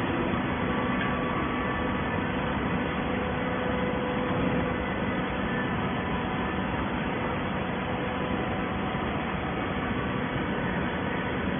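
Horizontal hydraulic baler running: a steady mechanical drone from its hydraulic power unit and ram, with faint steady tones and no distinct strokes or impacts.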